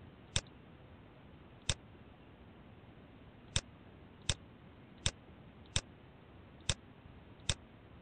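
Computer mouse button clicking: eight short, sharp single clicks at uneven spacing, roughly one a second, over a faint steady hiss.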